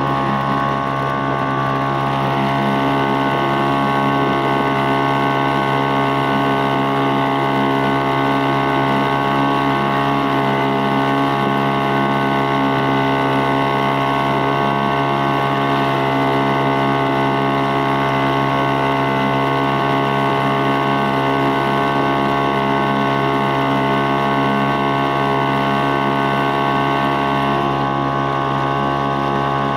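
Storm T3.5 outboard motor running at a steady speed, driving a small boat under way, with an even hum that does not change.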